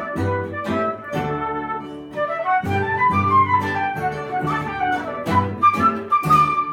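Small instrumental ensemble playing Brazilian music: a flute plays quick descending runs over guitar and low bass notes. The music ends abruptly with the last notes near the end.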